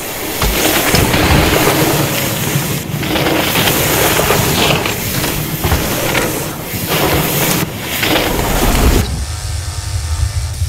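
Mountain bike ridden fast down a dirt trail: tyres rolling and scrabbling over loose ground, with wind rushing on the microphone. About nine seconds in the noise drops to a low rumble.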